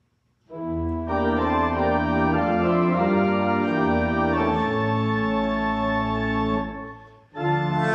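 Organ playing slow, sustained chords that change every second or so, starting about half a second in, with a short break near the end before the next phrase begins.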